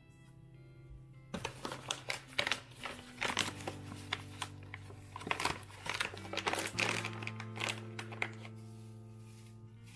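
Paper coffee bag being handled and unrolled, with dense crinkling and rustling from about a second in until near the end, over soft background music.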